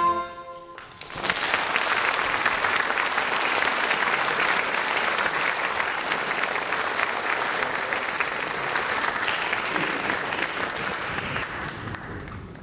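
Harmonica ensemble's final held chord cutting off just under a second in, ending the piece, followed by audience applause that fades out near the end.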